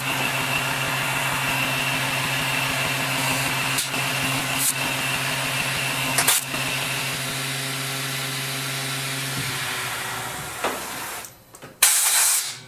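Milling machine spindle with a boring head running and boring a hole in 12L14 steel at a slow feed, a steady hum with a high whine and a few sharp clicks. The spindle winds down about nine and a half seconds in, and a short loud hiss comes near the end.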